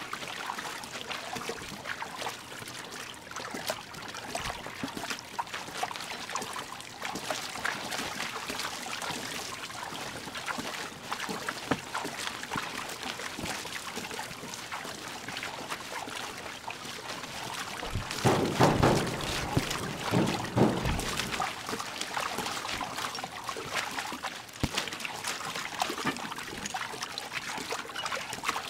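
Water splashing and trickling, with many small crackles through it, as a stormy-sea soundscape. A louder, deeper surge comes about two-thirds of the way through and lasts about three seconds.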